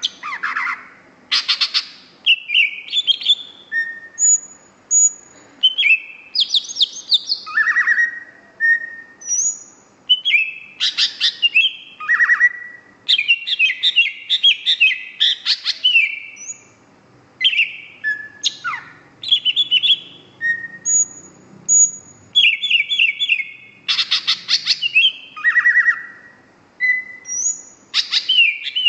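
Green leafbird (cucak hijau) in full, energetic song: a fast, varied stream of sweeping notes, rapid trills and short clear whistles, phrase after phrase with only brief pauses.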